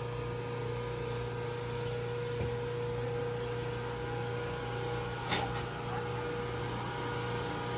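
Steady electrical appliance hum with a constant pitch, with one short sharp click about five seconds in.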